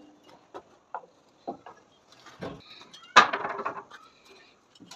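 Scattered knocks and taps of hand masonry work, then a louder clatter about three seconds in.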